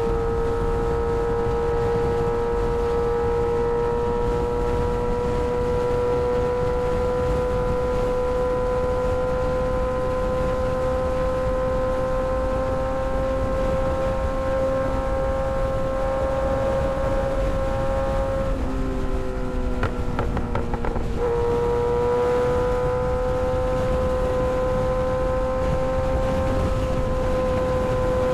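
Kawasaki ZX-6R 636 inline-four engine running at steady revs while riding, its note creeping slowly upward. About eighteen seconds in the throttle comes off and the note drops for a couple of seconds, then picks back up and holds steady, with wind noise underneath.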